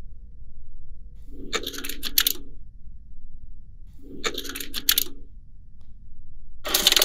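Three short bursts of rattling, clattering clicks, each about a second long and roughly two and a half seconds apart. A faint steady hum stops as the first burst begins.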